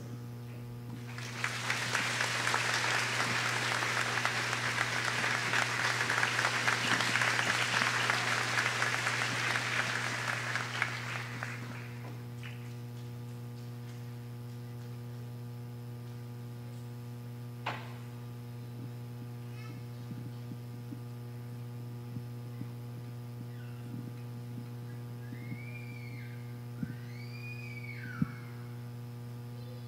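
A congregation applauding for about ten seconds, then dying away, leaving a steady electrical mains hum from the sound system. There is one faint click, and a few faint high chirps near the end.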